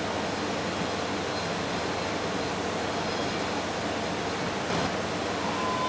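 Steady rushing outdoor noise, with a brief click about three-quarters of the way through.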